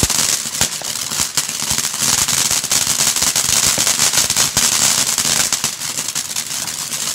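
Ground fountain firework spraying sparks: a steady high hiss with dense crackling pops all through.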